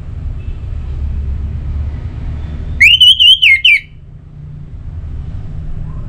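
Orange-headed thrush singing one loud whistled phrase about a second long, its pitch wavering up and down, about three seconds in, over a steady low rumble.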